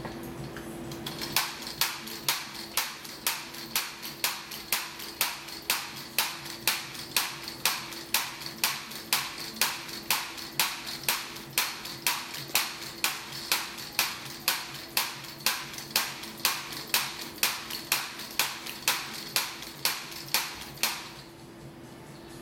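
One-legged hopping robot bouncing in place, its leg striking the floor in a steady series of sharp knocks about twice a second. The knocks start about a second in and stop near the end, over a steady low hum.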